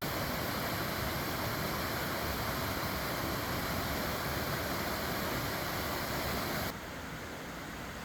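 Rushing water of a creek's waterfalls and cascades, a steady roar. It drops a little in level about two thirds of the way through.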